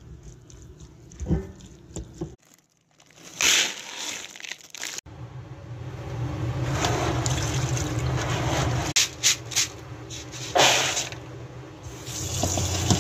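A spoon scraping and knocking in a bowl, then hands swishing dried navy beans in a plastic bowl of water, and tap water running into the bowl.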